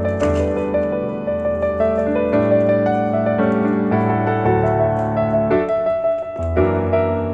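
Piano music: sustained chords over a bass line, with notes changing every half second or so.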